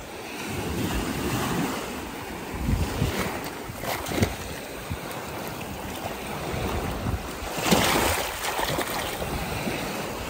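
Small waves washing up and foaming over a sandy beach, with wind buffeting the microphone.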